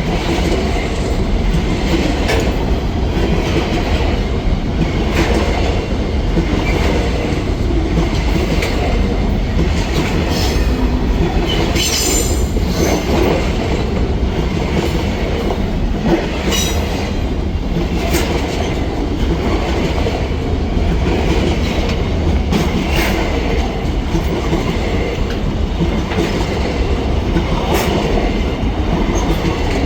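Freight train wagons rolling past, the steel wheels rumbling and clicking over the rail joints, with brief high-pitched wheel squeals now and then, the strongest about twelve seconds in.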